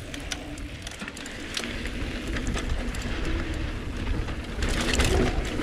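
Mountain bike rolling along a dirt singletrack trail: tyre rumble and wind noise that grow louder as speed builds, with many small knocks and rattles from the bike going over bumps.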